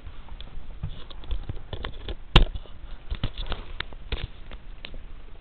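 Handling noise from a small handheld camera being moved about: a run of irregular clicks and rubs, with one sharp, louder knock about two and a half seconds in.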